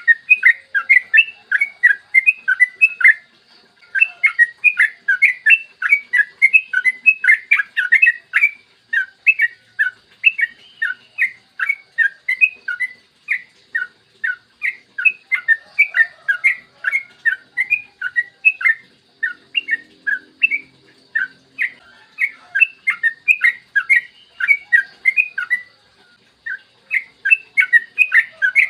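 Yellow-vented bulbul (trucukan) singing a long, fast string of short chirping notes, several a second, broken by brief pauses about three seconds in and again near the end.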